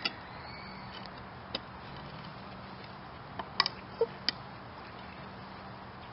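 Light clicks and taps of plastic bottles being handled on a tabletop: one at the start, one about a second and a half in, and a quick cluster near four seconds, as the dish-soap jug is set down and the food colouring bottle's flip-top cap is snapped open.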